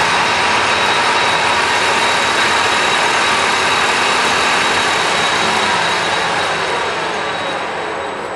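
Clausing metal lathe run from a VFD at its high speed setting, a loud steady mechanical whir with a high whine over it. About six seconds in it begins to slow and fade as it is shut down.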